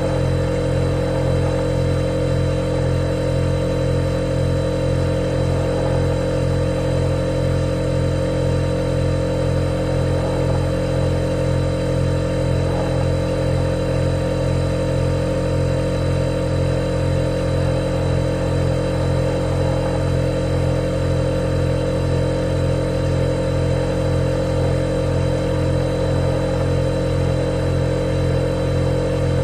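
Refrigerator compressor running with a steady, unchanging low hum.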